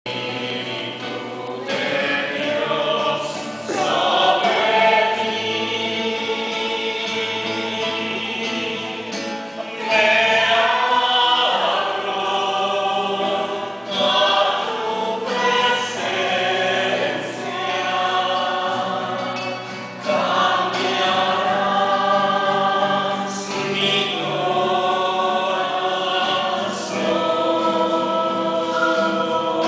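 A choir singing a church hymn over steady sustained instrumental accompaniment, in phrases that restart every few seconds.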